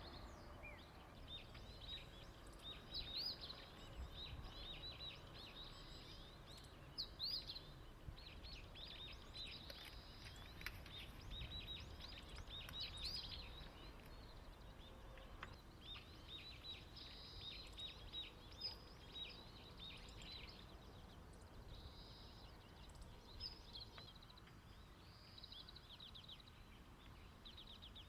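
Small birds singing, a run of rapid high chirps coming in clusters, over faint low outdoor rumble.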